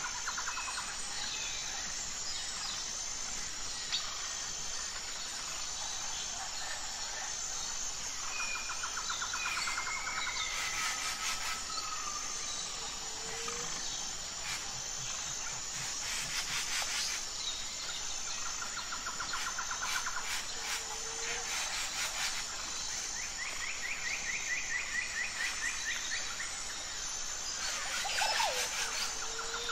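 Nature ambience of several birds chirping and trilling in short calls, over a steady high insect buzz.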